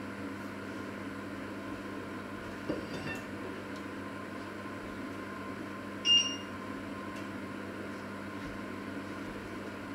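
Steady mechanical hum of a kitchen's background noise, with a soft knock a little under three seconds in and a short, high ringing clink, the loudest sound, about six seconds in.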